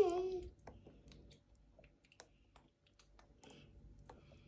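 A person's voice trailing off in the first half second, then faint scattered clicks and light tapping.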